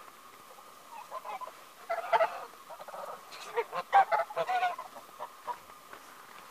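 A flock of domestic geese honking, several birds calling over each other in short bursts that peak about two and four seconds in.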